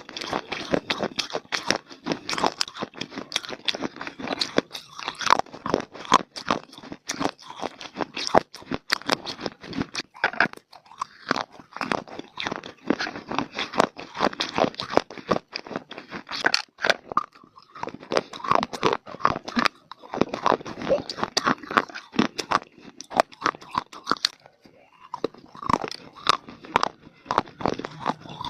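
Close-up crunching and chewing of dry, brittle clay (mitti): rapid crackly crunches, with short pauses between bites.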